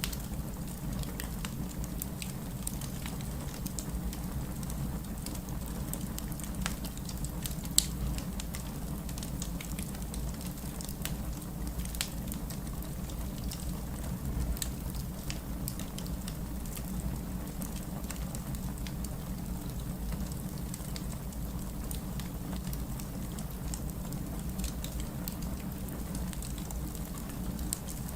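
Wood fire crackling in a fireplace: scattered small pops over a steady low rumble, with one sharper pop about eight seconds in.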